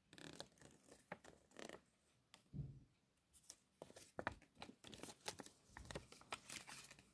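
Faint rustling and crinkling of a folded paper cassette insert being flipped and refolded by hand: a run of short, scratchy crackles with a couple of soft low bumps from handling.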